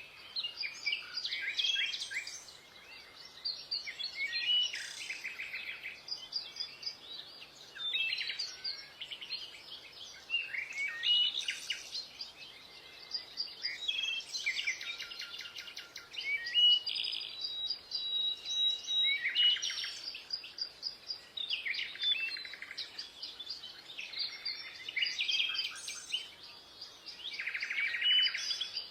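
Birds chirping and singing: many quick, overlapping high calls and trills that come in clusters every second or two.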